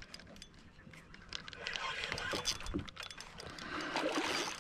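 Light clicks and knocks of fishing tackle on a kayak while a hooked redfish is played, then a splash that builds near the end as the fish thrashes at the surface.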